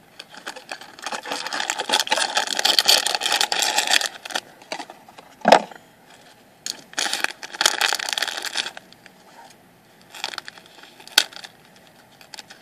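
Crinkling and rustling of a foil blind-bag pouch being handled, in two long bursts, with a few sharp clicks between them, the loudest about five and a half seconds in.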